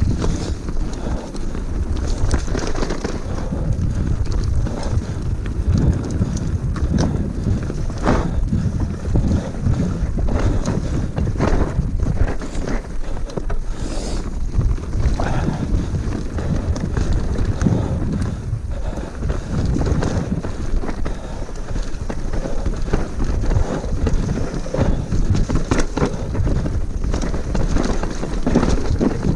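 Wind buffeting a GoPro's microphone as a mountain bike rides downhill, with frequent knocks and rattles from the bike over a rough trail.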